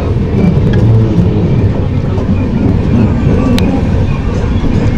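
Express train running on the track, a steady low rumble with faint rail clicks and one sharp click about three and a half seconds in.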